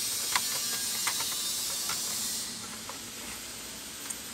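A steady high hiss that drops away a little past halfway, with a few faint clicks of fingers picking at the opened laptop's plastic case and metal drive bay.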